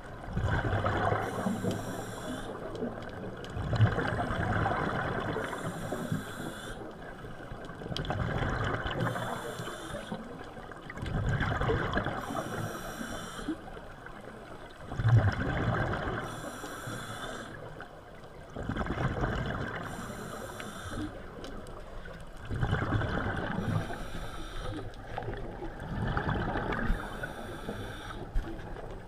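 Scuba regulator breathing underwater: a hiss on each inhale through the regulator alternating with a rush of exhaled bubbles, repeating about every three to four seconds.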